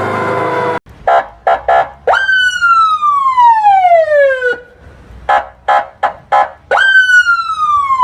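Emergency-vehicle siren: three short blasts, then a tone that jumps up quickly and slides slowly down over about two and a half seconds. The pattern plays twice. At the very start, the tail of a different, multi-tone siren cuts off abruptly just under a second in.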